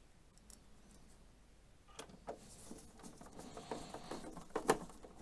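A Phillips screwdriver driving a screw into the plastic case of an Epson XP-55 inkjet printer: quiet at first, then a run of small clicks and scraping from about two seconds in, with a sharper click near the end.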